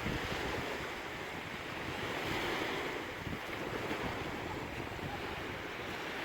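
Sea waves breaking and washing on a shore, a continuous rushing surf that swells and eases gently.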